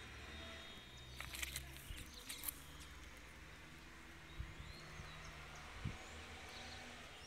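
Two puppies play-fighting on grass and gravel: scuffling and rustling of paws and bodies, with a flurry of small clicks and scrapes in the first seconds and a couple of single soft knocks later.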